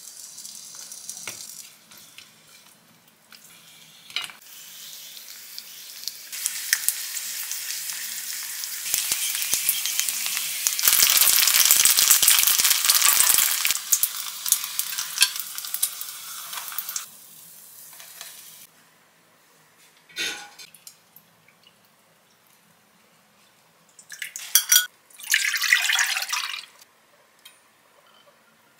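Frozen flat dumplings sizzling as they fry in oil in a nonstick frying pan. The sizzle swells to its loudest about halfway through, then dies away. A single sharp knock follows, and two short noisy bursts come near the end.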